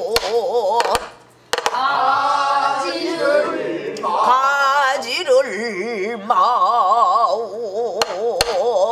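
A woman singing pansori in a full voice with a wide, slow vibrato, accompanying herself with sharp strokes of a stick on a buk barrel drum: a few strokes near the start and a couple near the end.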